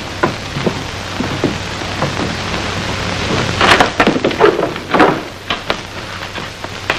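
Steady hiss and crackle of an old film soundtrack. Scattered knocks and footsteps on a wooden floor come and go, heaviest about four to five seconds in, as someone walks in.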